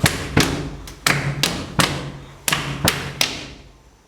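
Atabaque hand drum struck about eight times in a loose, grouped rhythm, each stroke ringing with a low tone before dying away; the playing stops a little past three seconds and the last stroke fades out.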